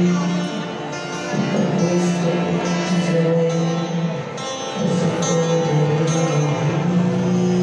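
Live acoustic pop performance: a strummed acoustic guitar with a male voice singing long held notes into a microphone, heard through PA speakers.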